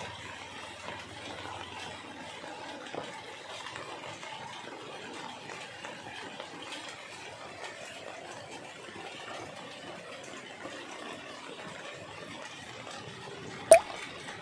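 Steady rain falling on the large leaves of a golden pothos, an even hiss. A single sharp knock sounds near the end.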